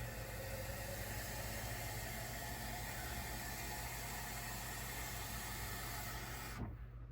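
Water running from a kitchen tap into the glass cold brew jar over the coffee grounds: a steady hiss that cuts off suddenly near the end.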